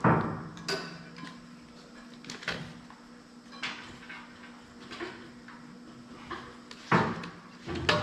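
Scattered metallic knocks and clanks of steel parts and tools being handled on a workbench, the loudest right at the start and about seven seconds in, over a steady low hum.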